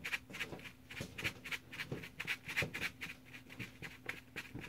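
A spoon stirring and scraping a stiff flour-and-water play-dough mixture around a bowl, in quick repeated strokes about four a second, over a faint steady hum.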